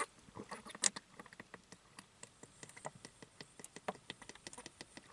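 Light rain falling, scattered raindrops striking as irregular sharp ticks several times a second, one louder tick about a second in.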